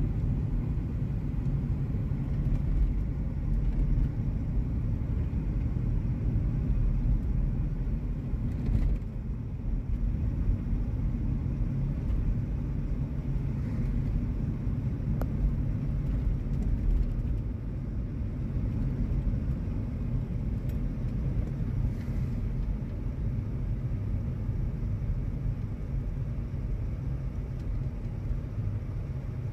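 Steady low rumble of a car driving, heard from inside the cabin: engine and tyre noise on a wet road. It eases a little past the halfway point as the car slows.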